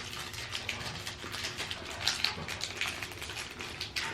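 Dense, rapid crackling from crispy almond cream wafers and their wrapper being handled and bitten into.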